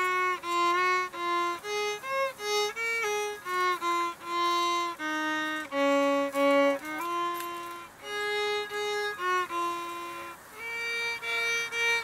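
Solo violin playing a simple melody, one held note after another with short breaks between them.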